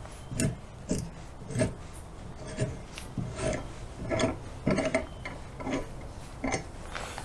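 Hand tap in a T-handle tap wrench cutting threads for a 3/8 in. bolt into a steel plate, turned by hand in short strokes. Metal scrapes and creaks, about two a second.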